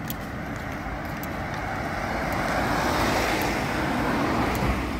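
A car passing close by on the road, its tyre and engine noise swelling to a peak about three to four seconds in and then easing, over a low steady rumble of traffic and wind.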